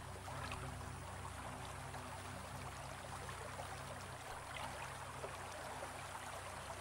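Shallow water trickling and lapping with small scattered splashes, as a large snake slides through it, over a low steady hum.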